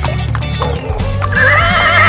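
Horse hooves clip-clopping, then a horse whinnying with a wavering pitch from about one and a half seconds in, over background music.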